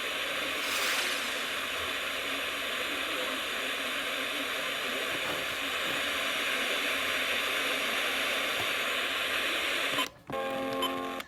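Radio static: a steady hiss from a weather-alert radio receiver while the broadcast voice drops out mid-sentence, a sign of the signal being lost. About ten seconds in it gives way to a short steady buzzing tone.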